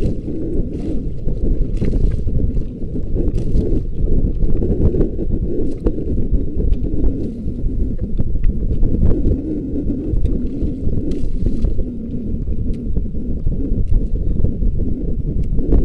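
Steady low rumble of wind and water noise aboard a small fishing boat at sea, with wind buffeting the microphone and a few faint ticks.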